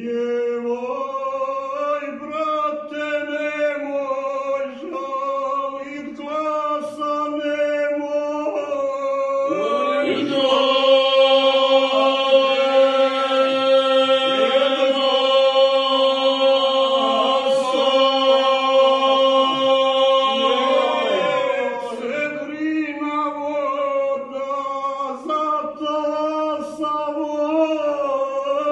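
Four men singing an unaccompanied Dinaric Serb folk song in close harmony, with long held notes over a steady lower drone and an ornamented upper voice. The chord swells and holds from about ten seconds in until about twenty-one seconds in.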